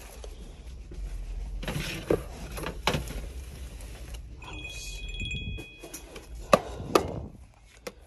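Clear plastic storage bins being handled on a metal store shelf: light rustling and a few sharp plastic knocks, with two louder knocks near the end.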